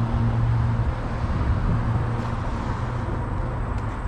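Steady road traffic noise: a low engine hum and the rush of passing vehicles.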